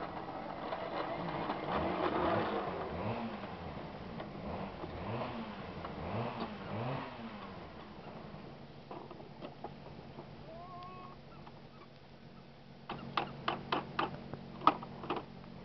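An engine revving up and down about once a second, then running at a steady pitch. Near the end comes a quick run of sharp clicks and knocks.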